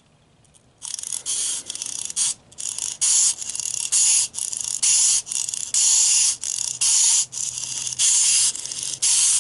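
Clockwork spring of a small plastic wind-up toy penguin being wound by its key: a rasping ratchet clicking in repeated turns, about two a second, starting about a second in.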